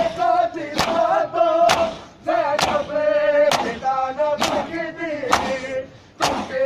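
Group matam: men slapping their bare chests in unison, one sharp slap about every second, over men's voices chanting a noha.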